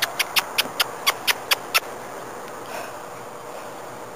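Quick, even run of crunching footsteps on playground mulch, about five a second for nearly two seconds, then they stop.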